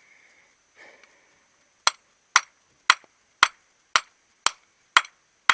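Eight sharp hammer blows on metal, about two a second and evenly paced, starting about two seconds in: knocking the old wheel bearing's outer race out of the hub.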